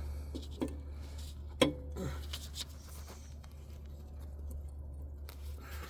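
A few light clicks and knocks from hands working a string and clip through a port in the skid steer's control housing, the sharpest about a second and a half in, over a steady low hum.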